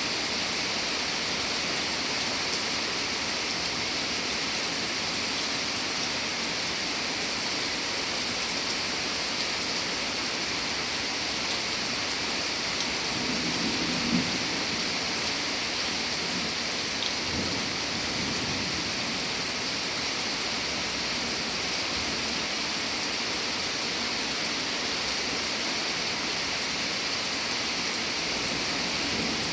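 Steady rain falling in an even hiss, with a brief low rumble about halfway through and a fainter one shortly after.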